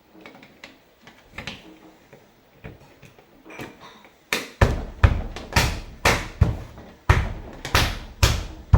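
Faint clicks and taps on a refrigerator door handle, then from about halfway a run of about nine loud knocks, roughly two a second. The handle is being worked back and forth and knocked against the door.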